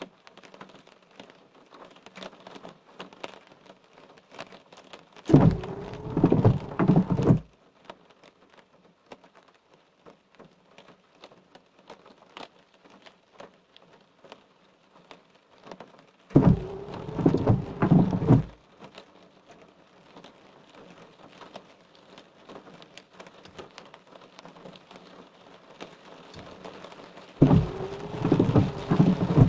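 Car windshield wipers on an intermittent setting: three wipe cycles about eleven seconds apart, each a couple of seconds of wiper motor whine and blades sweeping back and forth across the wet glass. Rain patters steadily in between.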